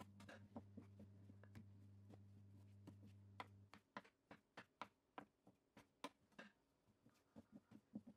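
Near silence: faint, scattered taps and soft knocks of a knife and hands working strips of yeast dough on a countertop. A low steady hum stops a little under halfway through.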